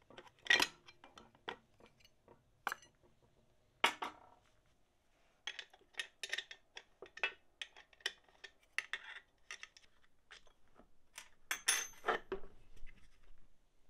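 Irregular metallic clicks and clinks of a spanner on the nuts and pipe fittings of a brake master cylinder and servo being unbolted, to take off the brake balancing valve, with small metal parts tapping on a metal workbench.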